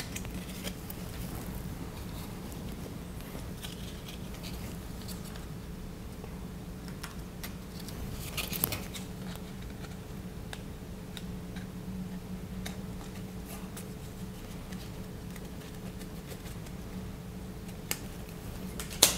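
Trading cards and foil pack wrappers being handled: faint rustles and clicks, with a louder rustle about eight and a half seconds in and a sharp click near the end, over a steady low hum.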